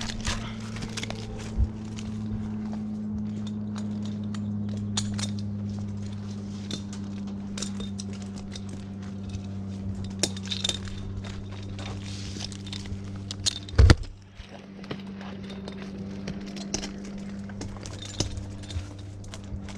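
A steady low engine or motor hum, with scattered light clinks and knocks and one loud sharp knock about fourteen seconds in.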